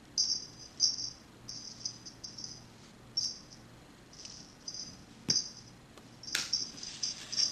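Feather cat toy being jiggled, giving short, irregular high-pitched bursts, with a sharp knock about five seconds in and a brief rustle near the end as a kitten pounces.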